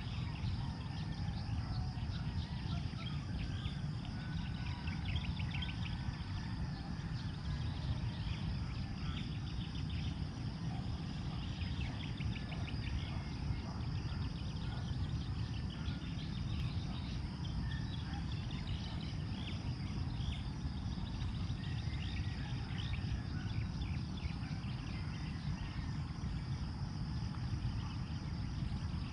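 Open-field ambience: a steady low rumble of wind on the microphone, a continuous high insect drone, and many short repeated bird chirps.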